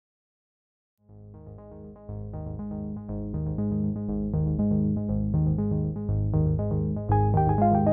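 Background music: a steady pulse of repeated notes over a low bass line, starting out of silence about a second in and growing louder.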